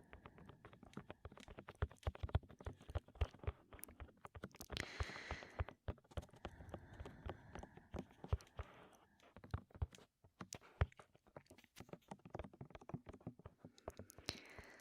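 Close-up microphone tapping: rapid, irregular fingertip taps and knocks on the mic, with a heavy breath rushing into it about five seconds in and again near the end.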